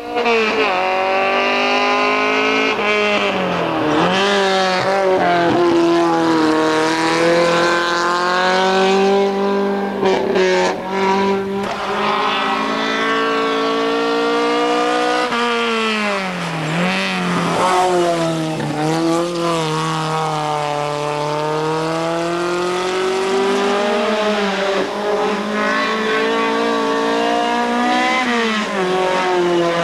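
Lotus-Ford 1600 Twin Cam four-cylinder engine of a Ford Escort hill-climb car at full throttle. It revs hard and climbs in pitch through the gears, then drops sharply at each shift and corner, several times over.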